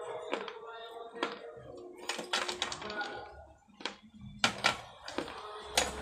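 Fired terracotta clay pot pieces crunching as they are bitten and chewed: a run of sharp, irregular crunches, the loudest coming near the end.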